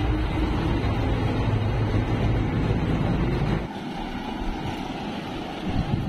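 Kartar 4000 combine harvester's engine running with a loud, steady low rumble as the machine passes close overhead. About three and a half seconds in the rumble drops away abruptly, leaving a quieter, more distant engine sound with wind noise on the microphone.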